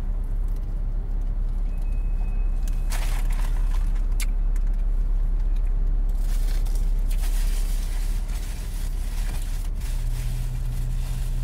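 Steady low hum of a car idling, heard from inside the cabin, with a few brief crackles and rustles as a croissant sandwich is bitten into and chewed.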